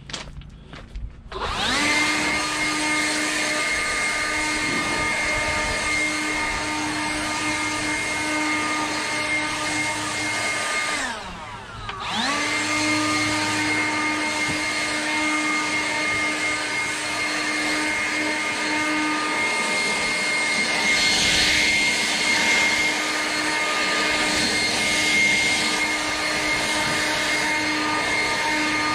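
Dewalt 20V brushless cordless leaf blower spinning up about a second in and running with a steady high whine. About eleven seconds in it winds down briefly and spins back up to the same pitch.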